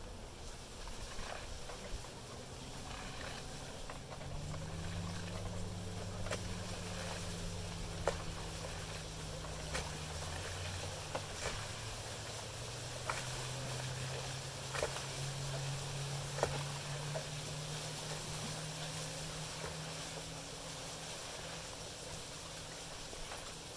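Honeybees buzzing in flight around a hive entrance: a steady low drone of several overlapping hums that drift slowly in pitch. A few short sharp ticks come through the middle.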